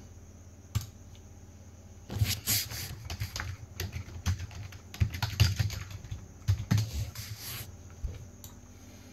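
Computer keyboard typing: a dense run of keystrokes lasting about five seconds, with a lone click about a second in and a few scattered clicks near the end.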